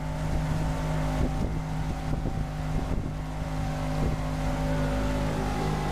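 Macgregor 26X's outboard motor running steadily at cruising speed, an even engine tone that holds without change.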